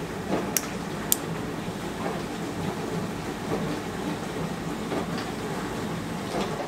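Milk, then frothed cold foam, poured over ice into a glass of iced espresso, over a steady background noise, with two sharp clinks about half a second and a second in.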